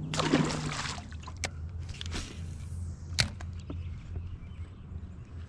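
A released fish splashing into the lake as it is tossed back from the boat, followed by a few sharp clicks of fishing tackle and a short hiss, over a steady low hum.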